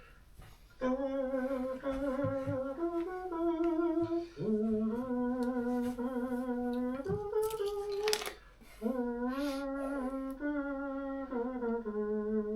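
A person humming a slow hymn tune without words, in long held notes with a slight wobble, in three phrases with short breaks about four and eight seconds in.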